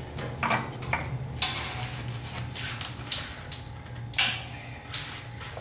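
Scattered light metallic clinks and scrapes of a starter mounting bolt being fished into place by hand against the engine and starter, over a steady low hum.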